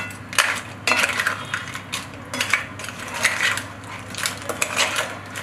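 A spoon stirring crab pieces in masala in a cooking pot, scraping and clinking against the pot and shells in uneven strokes about twice a second.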